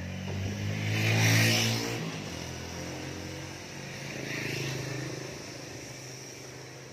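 A motor vehicle engine running, swelling loudest about a second in and again around four and a half seconds in.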